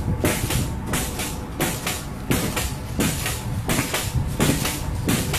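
Flybar pogo stick bouncing on a tile floor in a steady rhythm of about three landings a second, each landing a short clatter.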